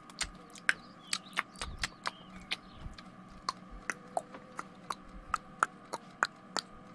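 Noisy eating sound effect: a string of sharp, irregular chewing clicks, about three a second.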